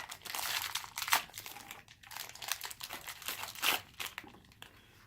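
Crinkly wrapping of a surprise chocolate egg and its toy being torn and unwrapped by hand: a dense run of crackles and rustles, busiest in the first couple of seconds and thinning out near the end.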